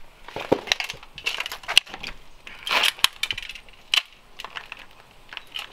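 Scraping, crunching and sharp knocks of a person squeezing through a narrow gap beside a boarded wooden door, with debris crunching underfoot. The clicks come irregularly; the sharpest are about two seconds in and at four seconds, with a longer crunch in between.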